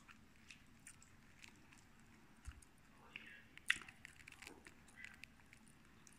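A toddler chewing a mouthful of soft bread: faint, scattered mouth clicks and smacks, with one sharper click about three and a half seconds in.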